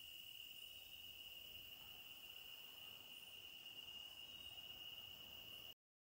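Faint, steady, high-pitched insect drone: one unbroken tone that cuts off suddenly near the end.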